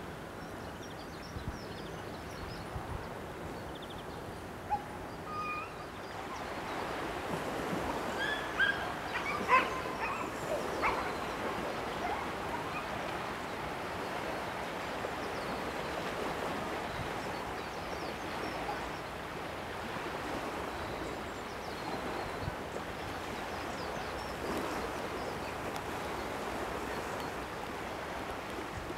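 Steady outdoor noise with a few short animal calls, squeaky yips, bunched about eight to eleven seconds in.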